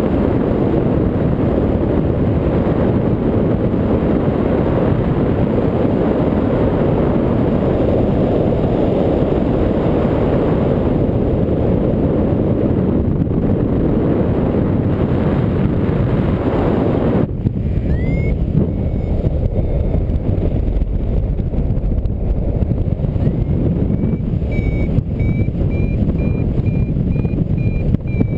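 Wind buffeting the microphone in flight, the loudest sound throughout. A little past halfway the Flymaster Nav variometer starts beeping: a high electronic tone, then steady beeps about twice a second that creep up in pitch, signalling climb in lift.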